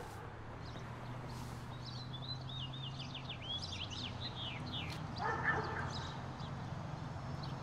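Outdoor ambience of a bird chirping in a quick run of high, rapidly sweeping notes, over a low steady hum. About five seconds in comes a short, louder, harsh call.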